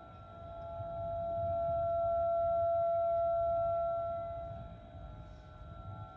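Outdoor tornado warning siren sounding at a steady pitch, swelling louder to a peak about midway and then fading, as a rotating siren does when it turns toward and away; it signals a tornado warning in effect. A low rumble runs underneath.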